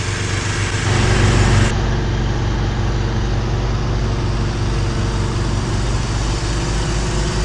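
An engine idling steadily, with a brief louder rush of noise about a second in.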